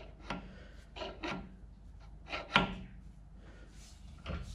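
A metal sleeve being pushed and twisted onto a freshly turned Morse taper in a lathe to check its fit: short scrapes of steel on steel and a few light knocks, the sharpest a little past halfway.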